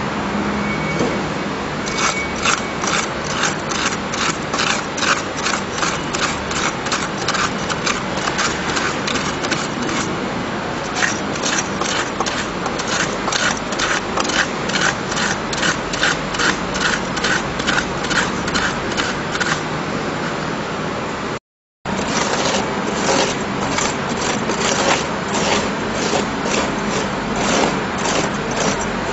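A lining rammer tamping refractory lining material into a furnace: rhythmic strokes of about three a second over a steady scraping noise. The sound drops out for a moment about two-thirds through, then the tamping carries on.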